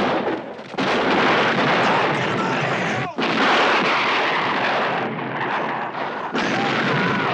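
Gunfire in a western film's action soundtrack: rifle shots over a dense, continuous din. Loud sudden onsets come about one second, three seconds and six seconds in.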